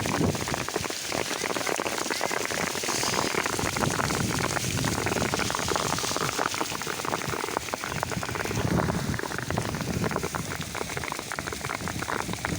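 Heavy rain pattering in a dense, steady crackle of drops, close on a piece of cardboard held over the phone.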